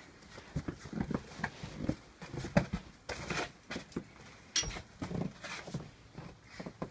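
A mastiff moving about on a snow-dusted floor: irregular taps, scuffs and knocks from its paws and its nosing around.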